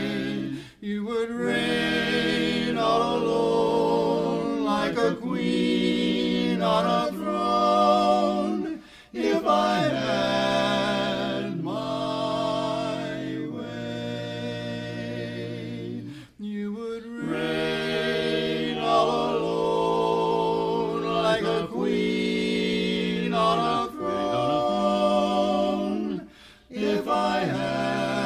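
Barbershop quartet singing a cappella in four-part close harmony, breaking off briefly between phrases about four times.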